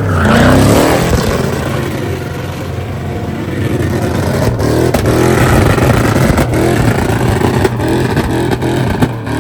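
Truck engine revving hard, its pitch surging up and falling back again and again, loudest about half a second in.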